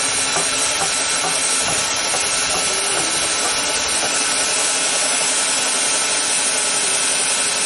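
A loud, steady hiss with no rhythm or change, with faint low knocks and traces of voices beneath it.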